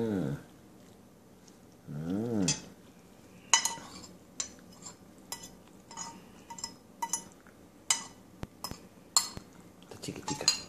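A metal spoon clinking and scraping against a ceramic bowl, a dozen or so sharp ringing clicks spread over the last seven seconds. Near the start, a person's voice makes two short wordless sounds, the pitch rising and falling in each.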